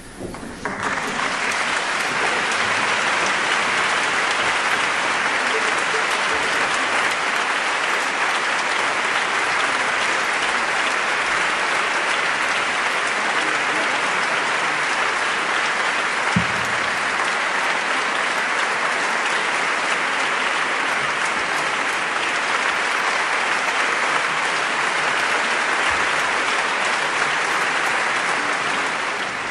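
Concert audience applauding steadily, the clapping swelling up within the first second and dying away at the very end. A brief low thud about halfway through.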